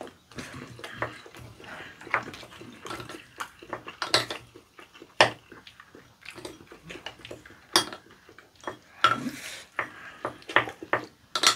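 A spoon and chopsticks clinking and scraping against ceramic bowls as rice and raw squid are stirred together and eaten, in irregular taps with a few louder knocks.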